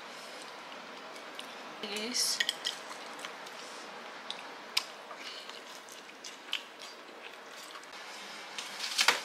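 Table knife and fork clinking and scraping on a ceramic plate while roast chicken is cut and eaten, as scattered light clicks. A short, louder clatter comes near the end.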